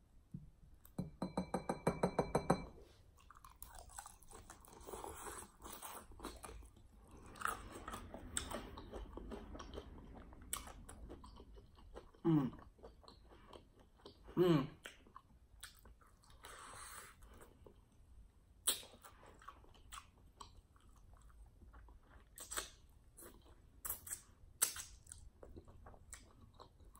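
Close-miked chewing and biting into crispy fried lemon pepper chicken wings, with irregular crunches and wet mouth clicks. A short low buzzing sound comes about a second in, and two brief falling-pitch sounds come around the middle.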